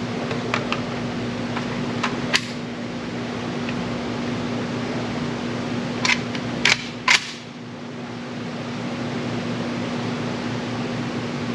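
Steady fan-like hum with a constant low tone under it, broken by a handful of short sharp clicks: a pair about half a second in, a louder pair near two seconds, and three more about six to seven seconds in.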